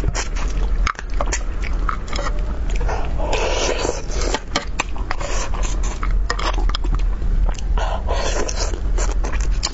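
A person eating spicy braised crucian carp close to the microphone: wet chewing and biting at the fish, with many small clicks and smacks and a couple of longer, noisier stretches.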